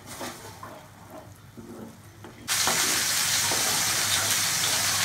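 Green masala paste being cooked down in hot oil and ghee in a kadai, stirred with a wooden spatula: light scraping at first, then about halfway in a loud, steady sizzling hiss starts suddenly.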